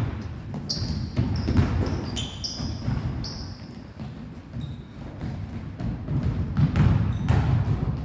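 Basketballs bouncing on a hardwood gym floor in repeated knocks, with several short, high squeaks of sneakers on the wood.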